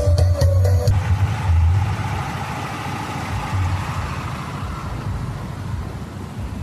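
Loud sound-system music cuts off about a second in, leaving a low engine rumble and street noise that slowly fade.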